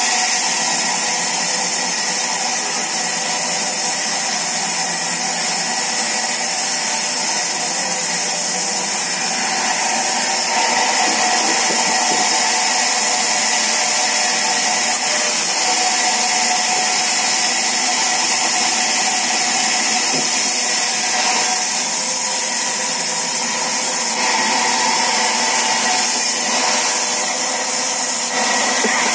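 Sawmill saw running steadily, a loud, even whine and hiss that holds with no letup.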